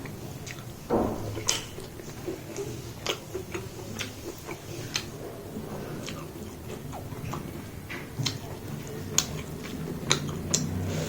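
A person eating close to the microphone: chewing and wet mouth clicks, with irregular sharp little clicks throughout.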